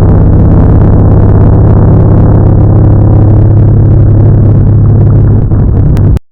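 Motorcycle engine running very loud at a steady pitch, the sound distorted, cutting off suddenly just before the end.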